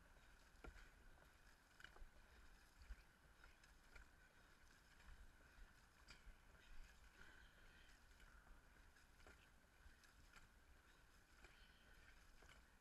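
Near silence: faint, muffled sounds of a dragon boat crew paddling, with soft irregular knocks and a low rumble.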